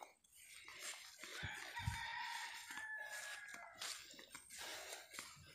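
A rooster crowing once: one long, faint call about a second in, lasting a couple of seconds.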